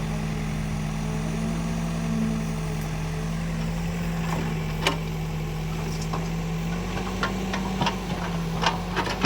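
Diesel engine of the earthmoving machinery running steadily, its pitch rising slightly about seven seconds in. Sharp knocks come about five seconds in, then several more near the end.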